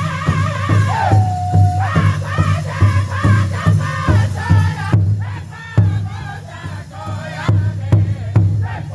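Powwow drum group singing an intertribal song: high, wavering voices in chorus over a big drum struck in a steady beat. About a second in one voice holds a long note. From about five seconds in the singing thins while the drum keeps the beat.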